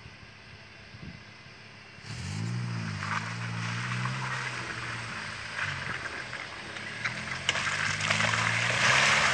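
Suzuki 4x4's engine revving as it drives through deep mud, with the tyres churning and splashing through mud and water. It comes in about two seconds in, rising and falling with the throttle, and gets louder toward the end as the vehicle comes closer.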